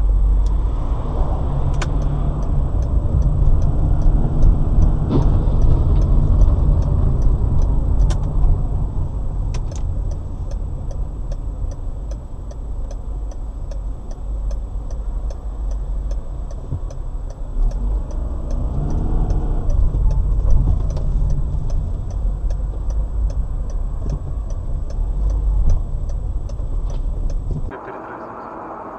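Road and engine noise inside a moving car, picked up by a dashboard camera: a steady low rumble, with faint, evenly spaced ticking and a thin high whine over it. It all cuts off suddenly near the end.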